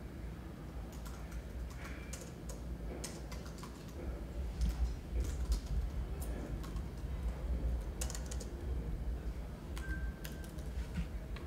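Keyboard typing: irregular key clicks as a short message is typed, over a steady low hum.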